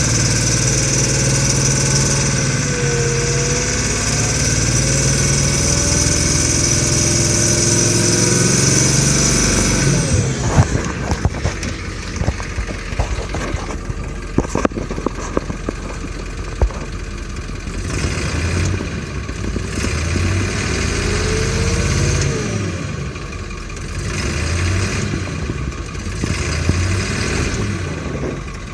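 Ford 7.3 L Power Stroke V8 turbo-diesel running, with a high whine for the first ten seconds. It then drops to a lower, rougher clattering run with sharp knocks, on injectors the owner says need replacing.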